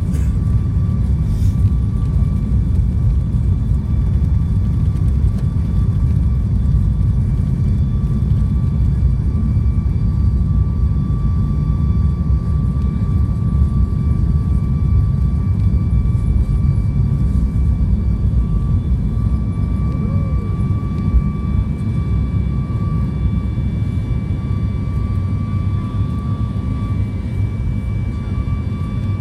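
Boeing 737 MAX 8's CFM LEAP-1B turbofans at high thrust, heard inside the cabin: a loud, steady rumble with several high engine tones holding a constant pitch.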